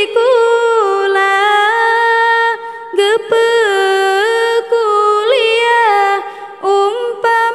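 A woman sings an Acehnese qasidah solo into a microphone. Her single high voice holds long notes and decorates them with quick melismatic turns. No instrument is heard with her.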